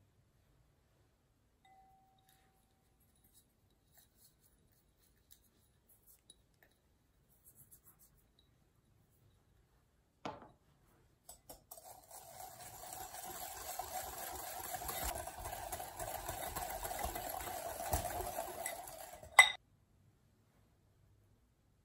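Wire whisk beating egg yolks and granulated sugar in a glass mixing bowl for about eight seconds, the wires scraping and ringing against the glass. A single knock comes just before the whisking starts, and it ends with a sharp clink of the whisk against the bowl.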